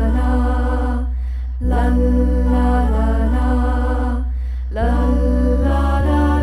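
Background music: a held, sung-sounding melodic phrase over a heavy, sustained bass, the phrase restarting about every three seconds.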